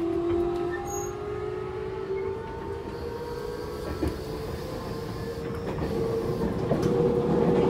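Onboard running sound of a Toei Mita Line 6300 series early car with a Hitachi GTO-VVVF inverter: the traction motor whine rises slowly in pitch as the train gathers speed. The whine drops back right at the start, and the running noise grows louder toward the end.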